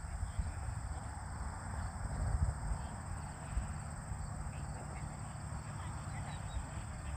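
Outdoor pasture ambience: an uneven low wind rumble on the microphone under a steady high drone of insects.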